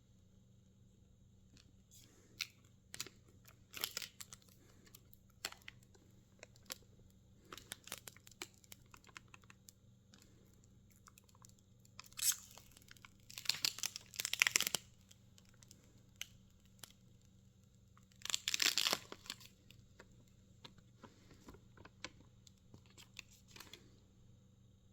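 Table tennis rubber packaging being handled and opened: plastic and paper crinkling and tearing, with scattered small clicks and taps. There are louder stretches of tearing and rustle about halfway through and again a few seconds later.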